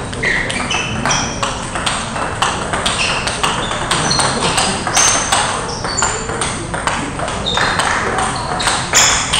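Table tennis balls being hit in rallies at several tables at once: a quick, irregular run of sharp clicks and short high pings as celluloid balls strike bats and tables.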